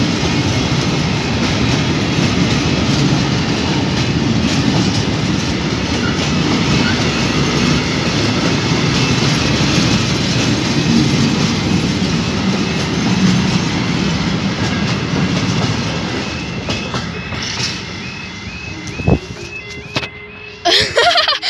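A freight train's box wagons roll past over the rails with a steady rumble and wheel clatter that fades as the train draws away. A knock comes near the end, followed by brief loud noises.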